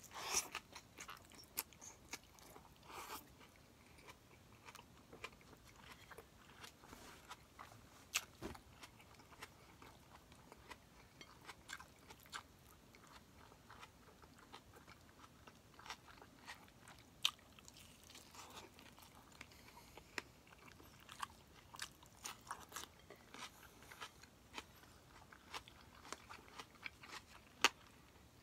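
A person chewing and biting a meal of boiled green vegetables and roast chicken eaten by hand: faint, irregular small crunches and mouth clicks.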